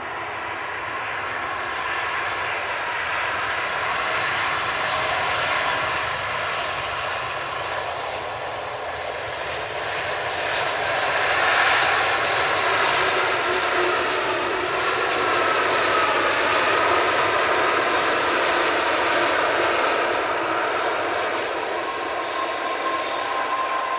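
Boeing 787 Dreamliner's jet engines at take-off power during the take-off roll. The engine noise builds to a peak about halfway through and stays loud, with a whine that sags in pitch and comes back.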